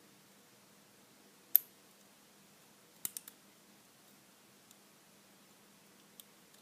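Small sharp clicks of a lock pick working the pins of a Lockwood 334C45 padlock: one loud click about one and a half seconds in, then a quick run of three about three seconds in, and a faint tick near the end.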